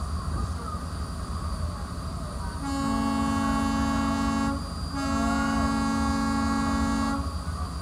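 Ferry boat's horn sounding two long blasts, each about two seconds with a short gap between, a chord of two low notes. A steady low engine rumble runs underneath.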